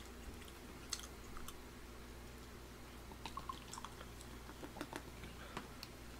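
Faint chewing with small mouth clicks. From about three seconds in come soft clinks and light splashing as beer is poured from a glass bottle into a glass.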